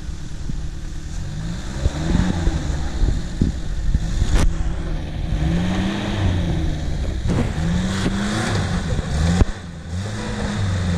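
Lada Niva engine revved in about four rising surges as the car strains to climb out of a muddy creek bank. A single sharp knock comes about four and a half seconds in.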